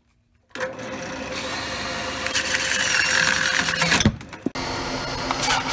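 Handheld power sander running against a cherry burl bowl spinning on a wood lathe, starting about half a second in with a steady motor whine and grinding hiss. A sharp knock comes about four seconds in, the sound drops briefly, then sanding resumes.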